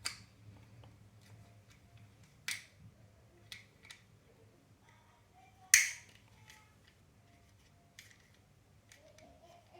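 Plastic parts of a Camelbak Eddy+ kids bottle being handled and fitted together: a handful of scattered clicks and knocks, the loudest about halfway through.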